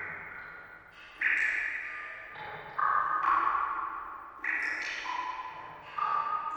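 Water drops falling one at a time into water, each a pitched plink that rings on and fades over a second or more. Four main drops land about every one and a half seconds, at different pitches.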